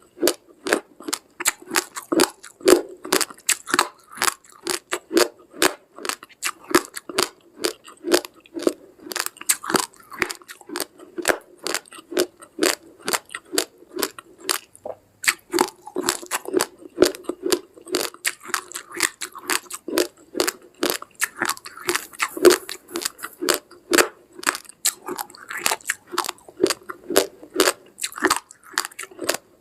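Raw rice grains being crunched and chewed between the teeth, close to the microphone: a steady, irregular run of sharp cracks, a few every second.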